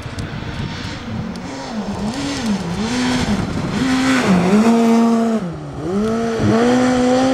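Škoda Fabia rally car coming through a snowy corner at speed, its engine revs rising and falling about once a second as the driver works the throttle and shifts. The engine note grows louder as the car closes in, with short drops in revs and a rush of tyre noise on the snow.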